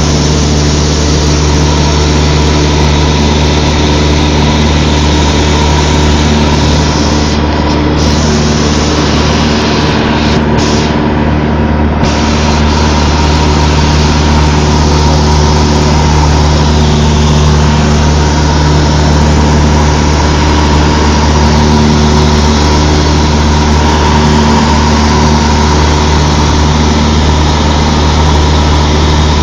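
Cessna 152's four-cylinder Lycoming O-235 engine and propeller droning steadily in flight, loud and even throughout.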